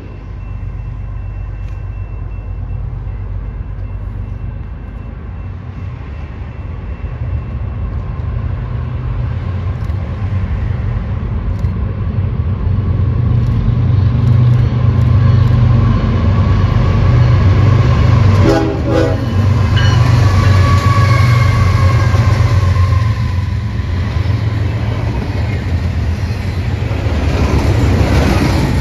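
Freight train's diesel locomotives approaching and passing with a heavy low rumble that grows steadily louder, sounding a multi-tone air horn for about four seconds a little past the middle, the chord falling slightly in pitch as it goes by. Double-stack intermodal well cars then roll past.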